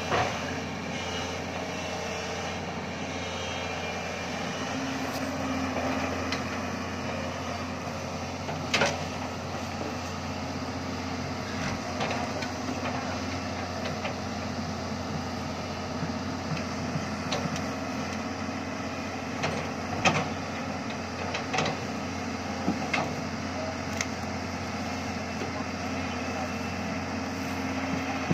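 Doosan crawler excavator's diesel engine running steadily while its log grapple gathers cut logs and branches, with several sharp knocks and clatters of wood scattered through, the loudest about a third of the way in and again about two thirds in.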